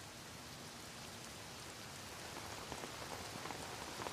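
Steady rain falling, faint and even, with a few light drop ticks, growing slightly louder over the few seconds.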